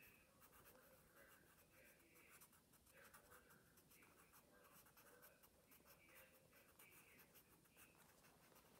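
Faint scratching of a graphite pencil on paper, scribbling small tight circles over and over in short irregular strokes.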